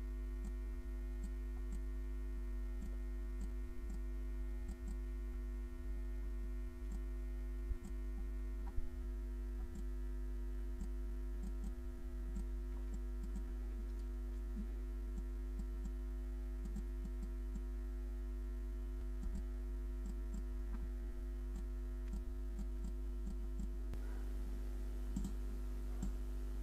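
Steady low electrical hum with scattered faint computer-mouse clicks, a couple of them louder about eight and nine seconds in.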